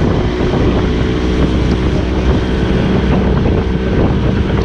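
Outboard motor on a small fishing boat running steadily at speed, with water rushing past the hull and wind buffeting the microphone.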